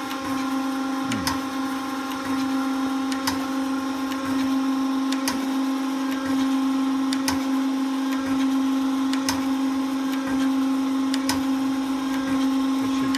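Elliot 8-20 surface grinder's hydraulic system running: a steady hum with a clear tone, growing a little louder over the first few seconds. A sharp click comes about every two seconds as the hydraulic feed works.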